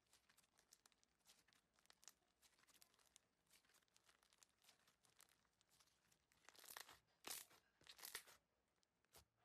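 Faint crackling and popping of foamy slime being squeezed and pressed by hand, with a denser cluster of crackles in the last three seconds.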